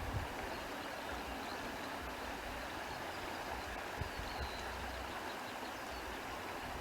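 Steady countryside ambience: an even rushing hiss with a few faint, short, high chirps.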